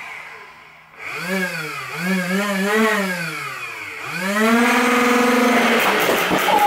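Nerf Rival Nemesis flywheel motors revving up and winding down in several short revs, then spun up and held at full speed for about two seconds. Near the end the whine turns rough and rattling as the blaster starts firing balls.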